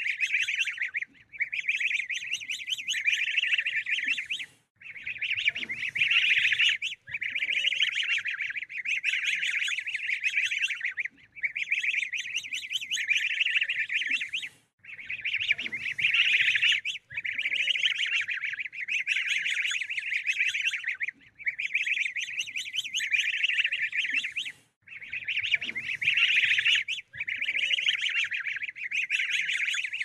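Ducklings peeping: a dense, continuous run of high-pitched peeps, broken by short pauses every couple of seconds, in a pattern that repeats about every ten seconds.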